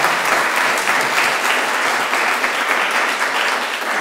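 Audience applauding: dense, steady clapping from many people, easing slightly near the end.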